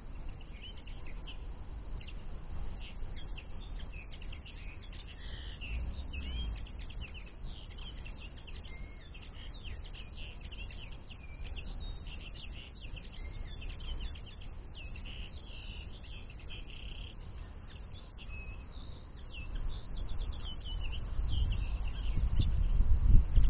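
Common linnets twittering: a dense run of short, quick chirps and trills throughout. A low rumble builds near the end.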